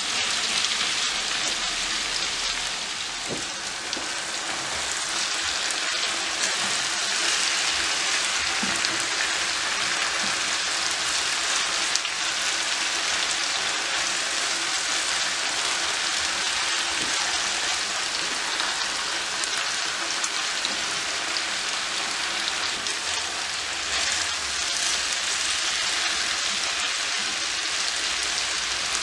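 Chicken pieces and sliced onions sizzling steadily in a hot frying pan, stirred with a silicone spatula.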